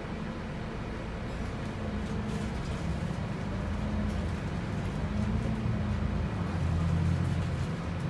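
Volvo 8900LE city bus (B7RLE chassis, six-cylinder diesel, Voith automatic gearbox) heard from inside the passenger cabin while under way. The engine note rises and grows louder, loudest about seven seconds in, then eases just before the end.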